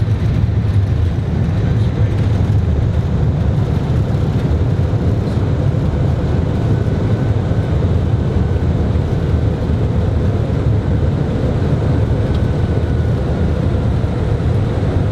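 Airbus A320 heard from the cockpit during its landing rollout: a loud, steady, deep rumble of the airliner decelerating on the runway after touchdown.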